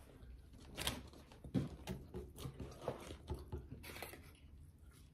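Chewing and mouth noises of people eating burgers and fries, a run of irregular short smacks and clicks.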